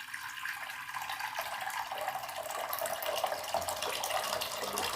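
Water being poured into a cooking vessel, a steady splashing pour, as the water for a kashaya is added.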